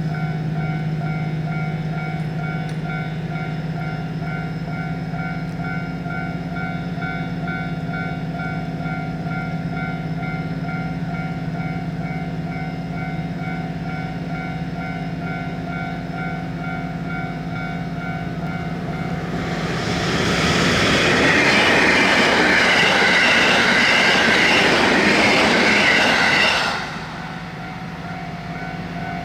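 Japanese railway level-crossing warning bell ringing its repeating "kan-kan" clang. About twenty seconds in, a train passes over the crossing, loud for about seven seconds and drowning out the bell. The bell is heard again after the train clears.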